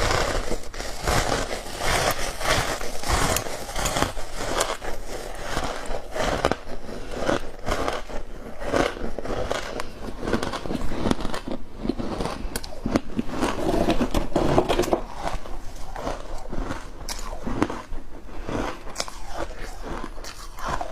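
Freezer frost mixed with milk powder being bitten and chewed close to the mouth: a continuous run of crisp, crackly crunches.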